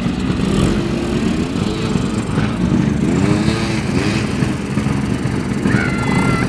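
ATV engine running while being ridden, its pitch rising and falling repeatedly with the throttle.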